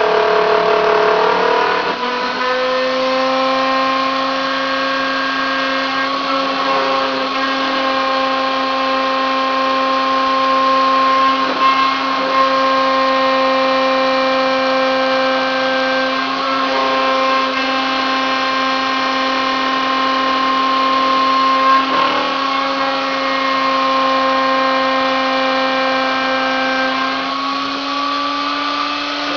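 Hobby CNC milling machine cutting steel with a 3 mm two-flute end mill in light 0.2 mm passes: the spindle and cut give a steady, high-pitched whine, with a few brief ticks. The tone drops lower about two seconds in and rises slightly near the end.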